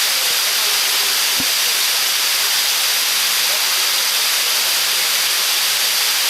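Water pouring over a small river dam: a steady, loud rushing hiss.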